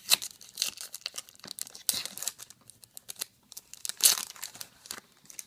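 Foil wrapper of a Topps Star Wars Galactic Files trading card pack being torn open and crinkled by hand, in a run of short crinkling bursts, loudest near the start, about two seconds in and about four seconds in.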